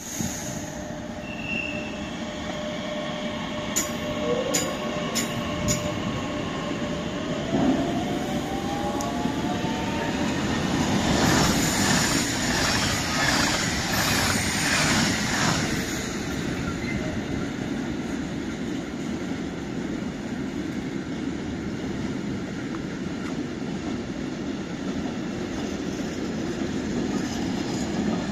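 A freight train of tank wagons rolling past, with a steady rumble of wheels on rail. Thin, shifting wheel squeals run through the first ten seconds or so. The passing gets louder around the middle, with a run of rhythmic clacks from the wheels.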